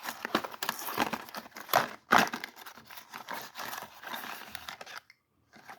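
Packaging rustling and crinkling as it is handled, with scattered light knocks. It stops about five seconds in.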